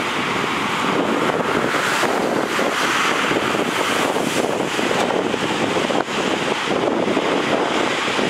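Strong wind buffeting the microphone over the steady rush of storm surf breaking against a concrete sea wall.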